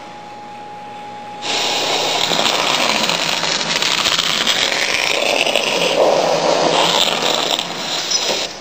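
High-pressure water jet of a Vapo Pro waterjet cutting machine hissing loudly as it cuts a sheet of foam insulation. The hiss starts about a second and a half in, after a quieter stretch with a faint steady tone.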